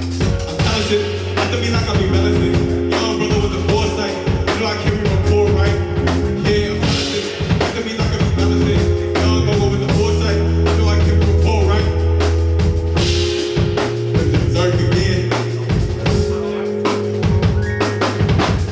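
A band playing live: drum kit and a bass line under the other instruments.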